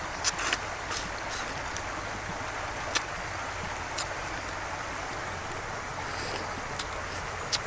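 Eating cooked blue crab: short sharp cracks and clicks of shell being bitten and chewed, several close together in the first second and a half, then one now and then, over a steady hiss.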